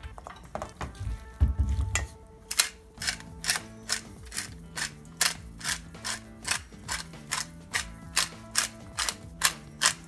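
Hand-twisted pepper mill grinding: a steady run of short clicks about three a second, starting about two seconds in.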